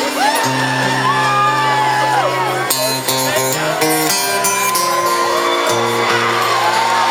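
Live concert music with held notes that change every second or two, while festival crowd members whoop and shout over it.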